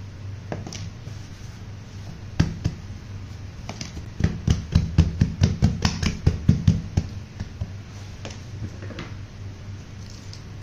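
Gloved palms patting and pressing a large ball of dough flat on a table, a single knock and then a run of quick, even pats at about five a second for some three seconds, over a steady low hum.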